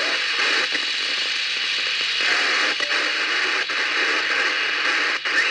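Steady hiss from an AOR AR7030 shortwave receiver in narrowband FM on the 10 m amateur band (29.620 MHz): a weak transatlantic repeater signal largely buried in noise, with only faint traces of a voice.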